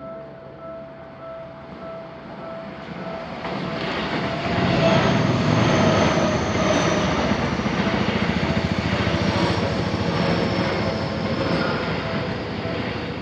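A Seibu Shinjuku Line train passing over a level crossing. Its rumble and wheel noise build from about three seconds in, are loudest through the middle, then ease off near the end. Meanwhile the crossing's warning bell keeps ringing its steady repeating tone.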